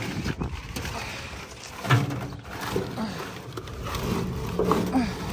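Crumpled chicken wire rustling, crunching and scraping against a steel tractor loader bucket as it is stomped and pushed down to compact the load, with a sharp thump about two seconds in.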